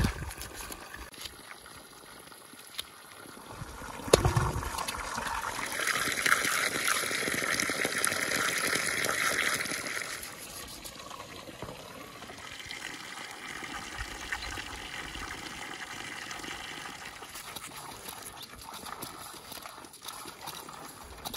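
Spring water running steadily from a pipe spout, with one sharp click about four seconds in.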